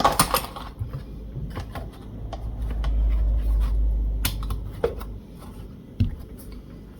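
Guitar parts being handled and test-fitted against a Telecaster body: a clatter near the start, scattered small clicks and knocks, and a low rumble of handling noise in the middle.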